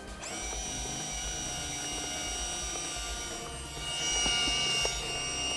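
Fuji GA645's built-in film-advance motor whining steadily as it winds freshly loaded 120 film on to the first frame. It starts abruptly and runs several seconds, getting louder about four seconds in.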